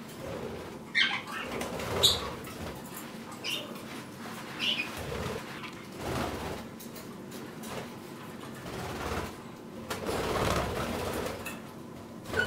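Pet budgies (budgerigars) chirping in short scattered calls, with wings flapping at times.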